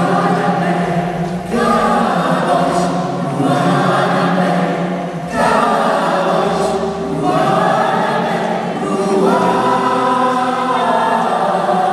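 Choir singing a Catholic worship song over a held low accompaniment, in phrases that break off every few seconds.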